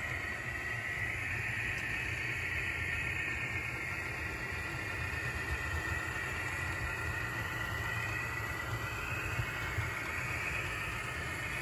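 Model diesel locomotive running slowly along layout track, a steady running sound with a high whine that wavers gently in pitch in the second half.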